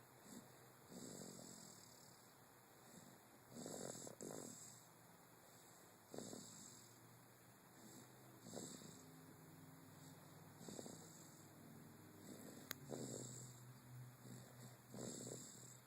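Faint, slow snoring, one breath every two to three seconds, with a brief click about thirteen seconds in.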